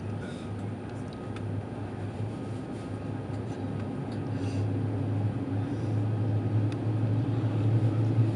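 Airbus A330 jet engines heard from inside the passenger cabin: a low, steady rumble that grows gradually louder.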